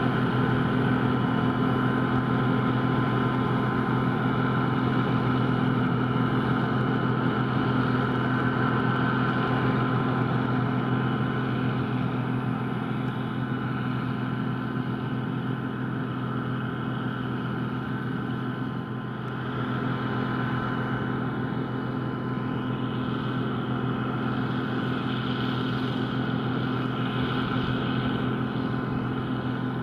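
John Deere 9560i combine harvester running steadily while harvesting, its engine and threshing machinery giving a constant, even drone. It eases off slightly for a moment about two-thirds of the way through.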